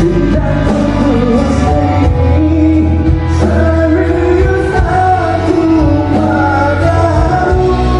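Music: a male singer singing a melody over band accompaniment with a steady bass.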